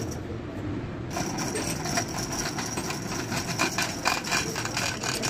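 Hand chain hoist rattling and clinking as it lowers a car engine and gearbox, many short metallic clicks over a steady mechanical rumble.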